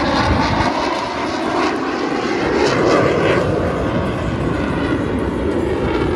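Fighter jet flying past overhead, its engine noise loud and steady, with a pitch that falls as it goes by early on.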